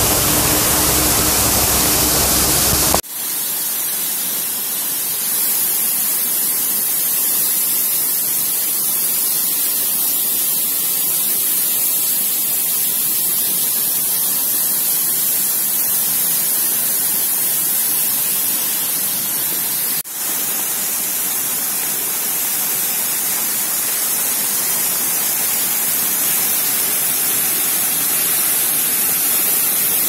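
Steady rushing of a waterfall swollen by a thunderstorm downpour. It is heavier, with a low rumble, for the first three seconds, then drops suddenly to a steady hiss that dips briefly once about twenty seconds in.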